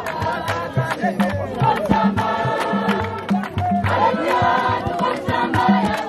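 A choir singing a hymn, with a recurring low beat underneath.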